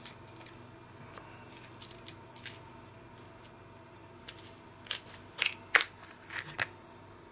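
Scattered small clicks and crackles of hands handling fly-tying tools and materials at the vise, with a cluster of sharper clicks about five to six and a half seconds in.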